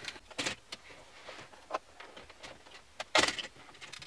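Plastic lower centre-console bezel of a Chevrolet Cruze being pulled off by hand: a few sharp clicks and snaps as its retaining clips let go, the loudest about three seconds in, with light plastic rustling between.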